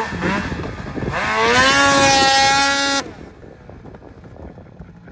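Snowmobile engine revving in short blips, then climbing to high revs and holding there for about two seconds as the sled churns through deep ditch snow, before the sound cuts off suddenly about three seconds in.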